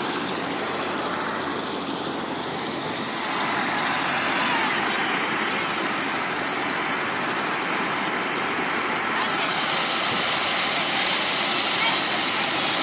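Light turbine helicopter running on the ground with its rotor turning. It makes a steady rushing noise with a high whine, which grows louder about three seconds in.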